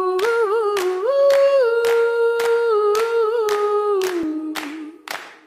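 Song intro: a voice humming a slow melody over a steady percussive beat, about two strikes a second. The humming slides down and fades near the end.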